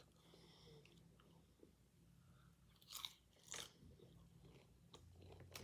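Faint, close-up chewing of food, with two short crunches about three seconds in.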